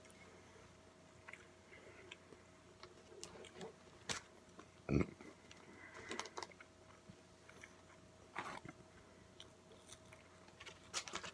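A person chewing and biting fast food, with scattered soft clicks and one louder thump about five seconds in.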